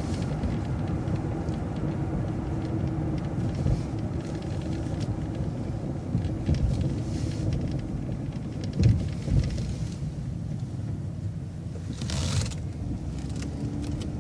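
Transit bus running and turning, heard from inside as a steady low engine and road rumble, with a short hiss about twelve seconds in.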